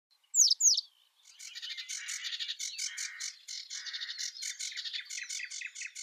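Birds calling: two loud, quick falling whistles, then a busy chorus of many birds chirping and twittering together.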